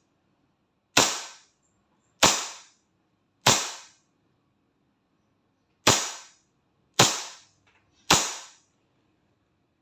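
WE 1911 MEU gas blowback airsoft pistol firing six shots, each a sharp crack with the slide cycling. They come about a second apart, with a longer pause after the fourth shot.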